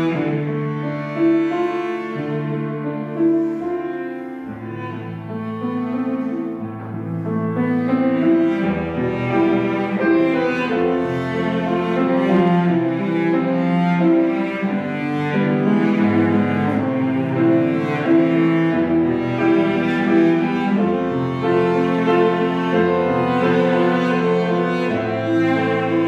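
Cello playing a melody of long held notes with piano accompaniment.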